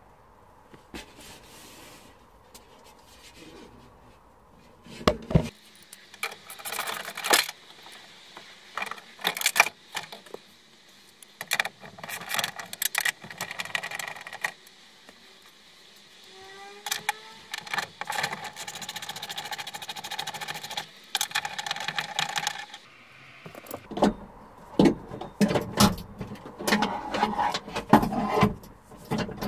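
Irregular clicks, knocks and rattles of a car's window regulator being worked loose inside the stripped metal door shell, busiest near the end. A brief rising squeak comes a little past halfway.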